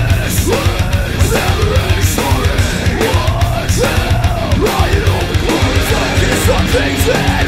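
Loud heavy metal music with a fast, driving beat.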